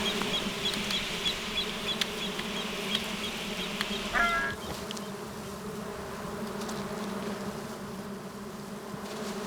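A swarm of brine flies buzzing as a steady hum, with a run of short high chirps over the first four seconds and one brief call about four seconds in.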